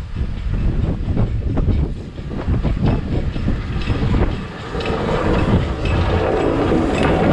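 Midland Railway 4F 0-6-0 steam locomotive No. 43924 running slowly past on the adjacent track, with rail clatter under its wheels. It grows louder about two-thirds of the way in as it draws alongside, over wind buffeting the microphone.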